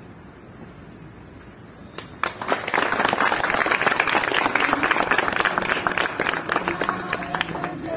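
A crowd of people clapping, breaking out about two seconds in after a low murmur and keeping up steadily, as applause for the national flag being hoisted.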